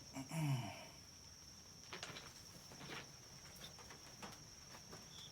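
Insects trilling steadily at a high pitch, crickets, with a short low falling sound about half a second in and a few faint clicks.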